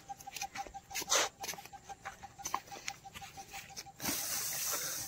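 Scattered scuffs and light rustles, then about four seconds in a stretch of steady rustling as a person pushes in among tall rice plants. Under it a faint high note pulses about six times a second.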